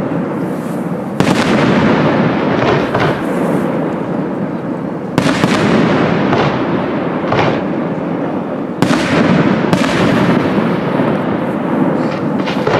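Professional aerial fireworks display: shells launching and bursting in a continuous rumbling barrage, with sharp, louder bangs about a second in, around five seconds, and twice near nine to ten seconds.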